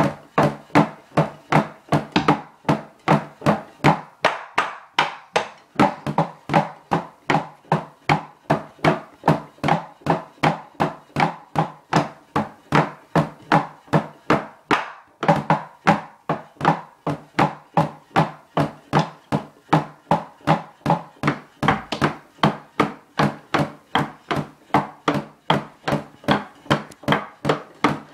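Wooden drumsticks clacking on the rubber pads of an electronic drum kit played through headphones, so only the thud of the sticks on the pads is heard. The strokes come in a steady beat of about three a second, with a short break about fifteen seconds in.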